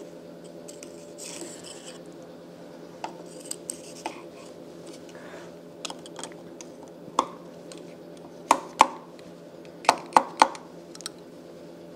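Sharp metallic clicks and taps of snap-ring pliers and a snap ring working against the end of a steel gear shaft. They come sparsely at first, then louder in two quick clusters in the second half. A steady low hum runs underneath.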